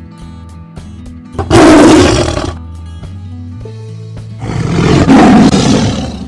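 Tiger roaring twice, two loud roars each lasting a second or more, about three seconds apart, over soft background music.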